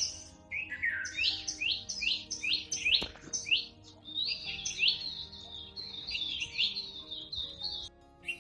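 Songbirds singing in the early-morning dawn chorus: runs of quick, high, slurred chirps, about three a second, with a short break about three and a half seconds in.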